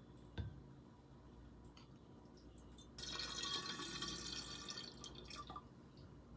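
A light knock, then about two and a half seconds of water being poured into a measuring container, from about three seconds in.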